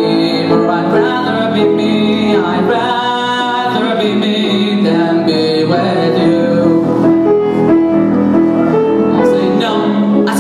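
Live vocal performance of a show tune with piano accompaniment; the singers hold long sustained notes over the piano.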